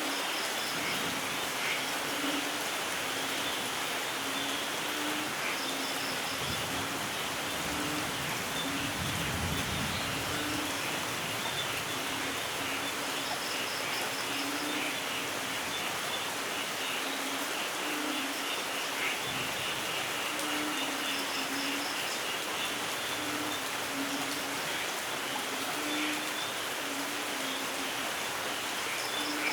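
Steady light rain falling, with a bird's short high trill repeating every several seconds and a low note sounding again and again. A faint low rumble of distant thunder rises about a quarter of the way in and again past the middle.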